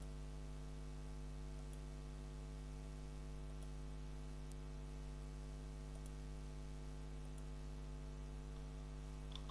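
Steady electrical hum from the recording setup, with a few faint computer mouse clicks scattered through.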